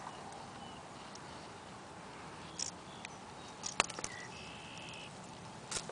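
Faint handling noise: a few soft clicks and rustles from a hooked frog and a wire spinnerbait being worked in the hand as the hook is freed. A brief faint high steady tone about three-quarters of the way in.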